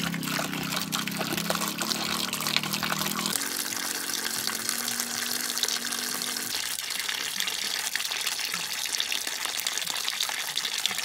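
A stream of water splashing into a metal basin as it fills around a 3 kg LPG gas cylinder. It goes on steadily, with a low hum underneath that steps up in pitch once and dies away a little past the middle.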